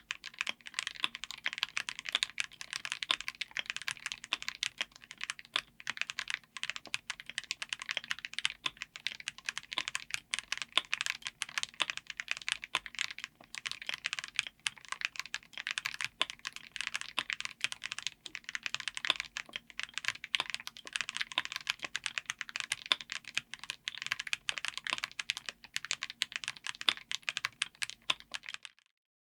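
Gateron Magnetic Jade Ultra linear magnetic switches typed on fast and continuously in a mechanical keyboard: a dense stream of key clacks that stops shortly before the end.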